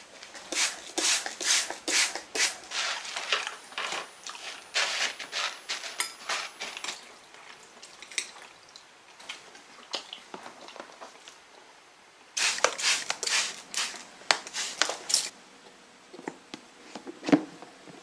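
Rustling and light clattering in three bursts as hands handle a paper towel lining a bowl and plastic sprouting trays of soaked seeds, with a few single clicks near the end.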